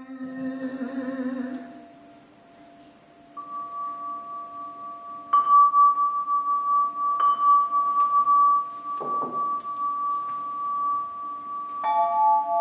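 A held, wavering sung note fades out in the first two seconds. Then a crystal harp's glass rods, struck with a felt mallet, ring out in long, steady, bell-like tones. They are struck again a few times, with two new notes sounding together near the end.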